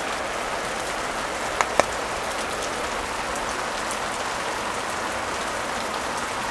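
Heavy rain falling in a steady downpour, an even hiss throughout. Two short sharp clicks come close together about a second and a half in.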